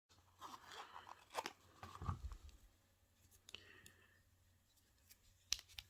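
Faint handling of a Victorinox SwissTool Spirit Plus multi-tool: soft rustling for the first couple of seconds, then a few sharp metal clicks spread over the rest.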